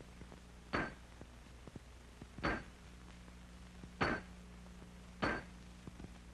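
Four hammer blows on a hand-held chisel, about a second and a half apart, cutting a bar of hot steel on an anvil into pieces. Each blow is a sharp metallic clink with a brief ring.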